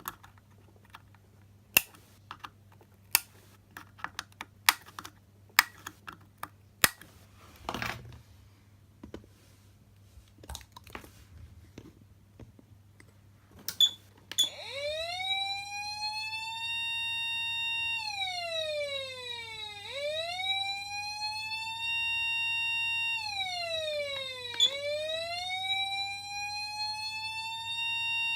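Patlite SAP500BZ siren amplifier: a run of sharp switch clicks, then about halfway through the siren comes on with a wail that rises in pitch, holds steady, falls and rises again, cycling twice. A low steady hum sits under it.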